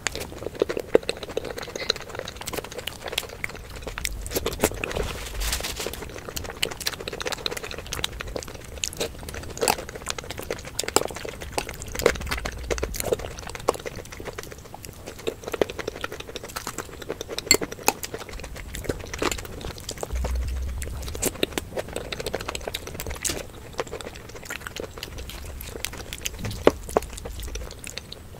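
Close-miked eating sounds of Indian chaat: chewing and crunching with many sharp mouth clicks and smacks, and fingers squishing through the wet chaat in its gravy.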